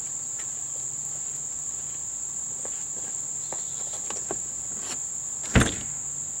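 The lid of an A-frame camper's front storage compartment is swung down and shut with a single thump near the end, after a few faint clicks as it is handled. A steady high-pitched insect drone runs throughout.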